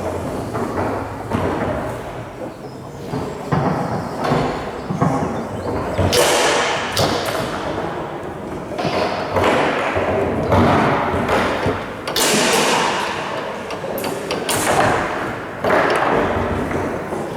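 Foosball play on a Tornado table: irregular sharp knocks and thuds as the ball is struck by the rod figures and hits the table walls, with the rods banging.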